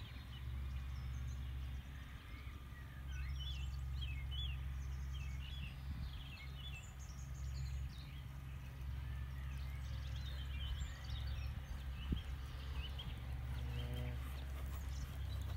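Countryside ambience: small birds chirping and singing throughout over a steady low wind noise on the microphone.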